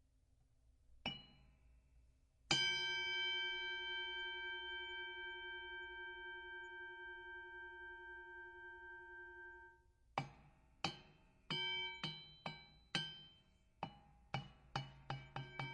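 Boxing ring bell: a short ding about a second in, then one loud strike that rings for about seven seconds, fading, and stops abruptly. Near the end comes a run of quick single dings that come faster and faster.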